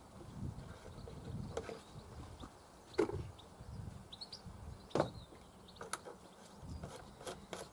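Faint handling of plastic containers: a jug and funnel being moved and set down, with scattered light knocks, the two sharpest about three and five seconds in.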